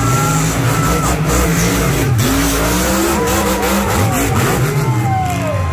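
Monster truck engines revving on a dirt track, pitch rising and falling as the trucks accelerate and ease off.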